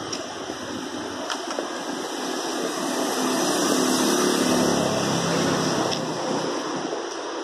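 A car driving past. Its engine and tyre noise swells to a peak about four seconds in and fades as it goes by, over steady outdoor noise.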